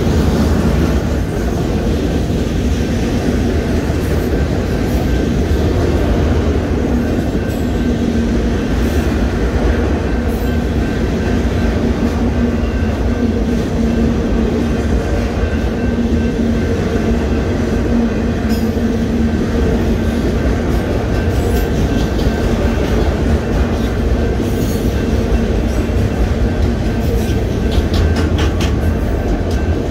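Union Pacific mixed freight train's autorack cars rolling steadily past at a grade crossing: a continuous rumble of wheels on rail that holds at the same level throughout.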